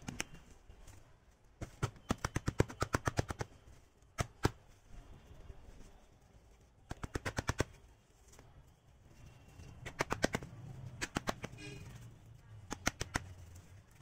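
Hand slapping the sides of an upturned plastic flower pot in fast runs of sharp taps, with several bursts and a few single knocks, loosening the soil and root ball from the pot wall so the plant can be slid out for repotting.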